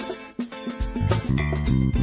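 Funk-style ringtone tune: short, choppy notes over a bass line that drops out briefly about half a second in, then comes back.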